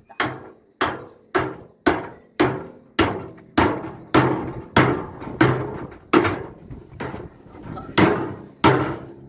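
Hammer blows on a steel drum, struck steadily a little under twice a second, each with a short metallic ring, as the drum is cut open along a marked line to make a stove.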